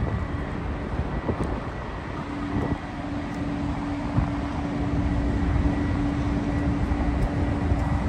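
Steady low rumble of city vehicle noise outdoors, with a steady hum that joins about two seconds in and holds.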